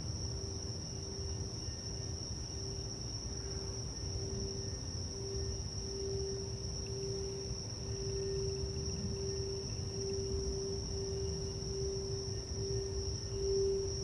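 Frosted quartz crystal singing bowl rubbed around its rim with a mallet, sounding one sustained tone with a slow wavering pulse that swells louder near the end. A constant high chirring of crickets runs underneath.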